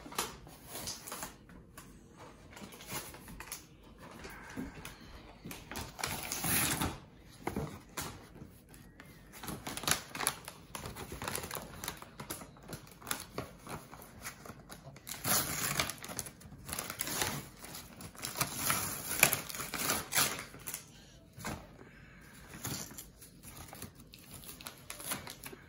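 A toy tea set's clear plastic packaging tray and cardboard insert being handled, giving irregular small clicks and crackles as the plastic pieces are pried out.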